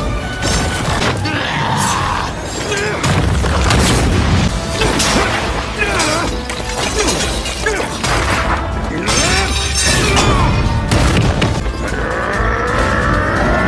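Anime battle soundtrack: dramatic background music over a rapid run of fight sound effects, with crashes, booms and sharp impacts.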